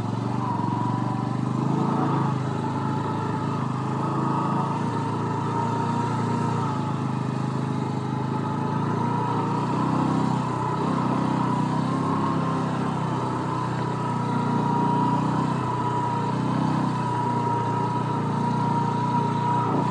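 Single-cylinder four-stroke engine of a Bajaj Boxer 125 motorcycle running steadily while the bike is ridden, its note swelling and easing slightly a few times.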